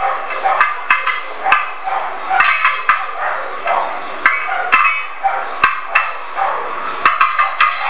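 Popcorn popping in a pot: irregular sharp pops, about one or two a second, over a steady hiss.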